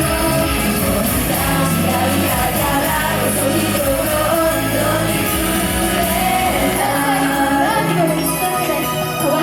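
Live pop music: singing voices carrying a melody over a loud, continuous band backing.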